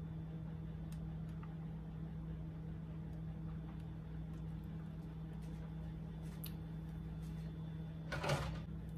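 Steady low hum of a kitchen appliance, with a few faint ticks. A short rustling noise comes about eight seconds in.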